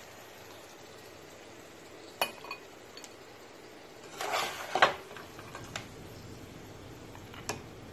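Metal serving spoon clinking and scraping against the pot and a glass serving bowl as meat is dished out. A few scattered clinks, with a louder run of scrapes and knocks about four to five seconds in.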